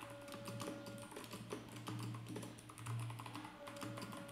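Typing on a computer keyboard: a quick, uneven run of faint key clicks over a low steady hum.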